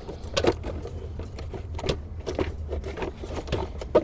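Irregular light knocks and clattering of a hard plastic air filter box being pushed and seated into place by hand, with the loudest knock near the end, over a steady low hum.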